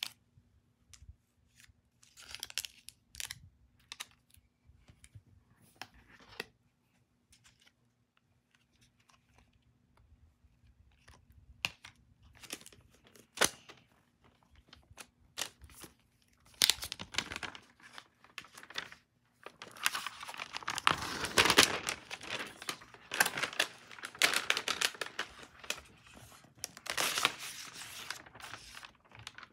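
Packaging of a MacBook Pro being handled: scattered clicks and light rustles of cardboard and wrap at first, then from about halfway on, dense rustling, crinkling and tearing of packaging wrap.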